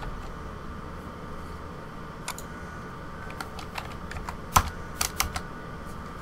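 Computer keyboard keys and mouse clicks as a number is entered into a field: a few scattered clicks, bunching up between about three and a half and five seconds in, the loudest about four and a half seconds in, over a faint steady hum.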